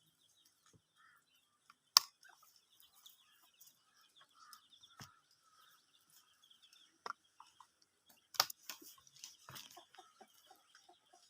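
Domestic hen clucking quietly, with many faint high peeps throughout. A few sharp knocks cut in, the loudest about two seconds in.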